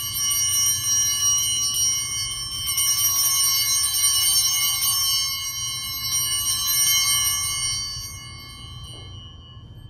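Altar bells (sanctus bells) shaken and ringing at the elevation of the chalice during the Eucharistic prayer. They swell in several rounds and fade out about eight seconds in.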